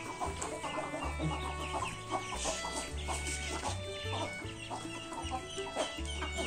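Domestic chickens clucking and chirping as they gather to feed, over background music with a low bass line.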